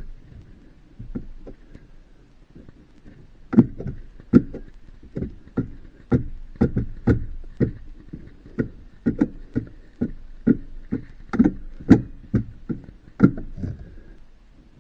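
Irregular knocks and clicks of hard parts being handled and fitted by hand, about one to three a second, busier in the second half.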